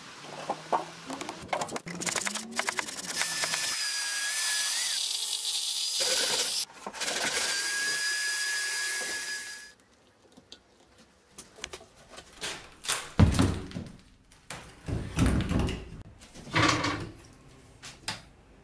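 A power tool running on wood with a steady high whine, first in a few short bursts and then for about eight seconds with one short break. After that comes a string of separate knocks and clunks of handling and screwing.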